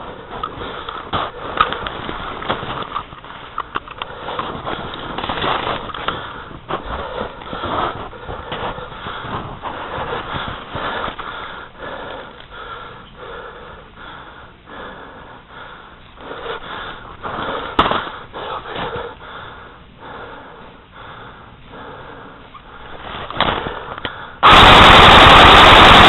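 Scattered sharp pops of airsoft guns firing, irregular and at varying distances, over the player's breathing and movement noise. Near the end a sudden, very loud burst of hiss-like noise lasts about three seconds.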